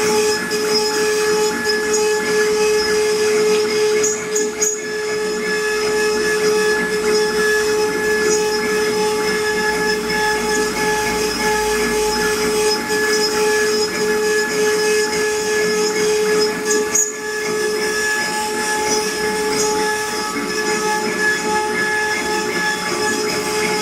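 CNC wood-carving router running: a steady high whine from the spindle over the hiss of the bit cutting wood, with brief dips about four and a half and seventeen seconds in.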